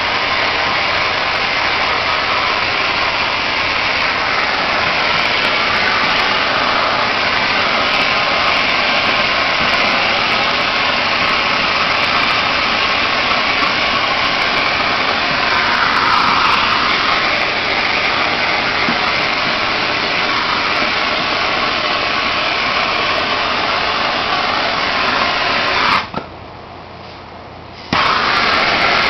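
Handheld gas torch burning with a steady, loud hiss as it heat-shrinks window tint film. The hiss stops for about two seconds near the end, then comes back on.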